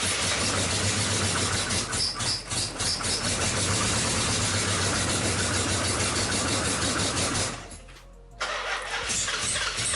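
2005 Chrysler 300C's 5.7L Hemi V8 running steadily under close inspection for a surge that the owner suspects comes from an injector or vacuum leak. The sound drops away abruptly for under a second near the eight-second mark, then returns as before.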